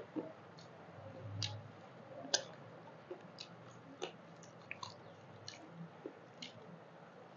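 Mouth sounds of eating rice and chicken curry by hand: irregular wet smacks and sharp clicks of chewing, with the soft squish of fingers mixing rice on a steel plate.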